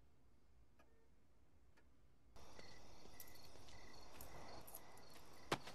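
Near silence at first, then, about two seconds in, crickets chirping at night: short, high, evenly repeated chirps over a faint outdoor hiss. A single sharp click comes just before the end.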